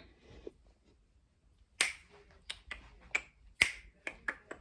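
A run of short, sharp clicks starting about two seconds in, coming irregularly two or three a second.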